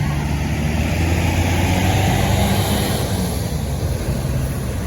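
Tour bus's diesel engine running as the bus drives past, a deep steady hum that grows louder to about two seconds in and then fades a little.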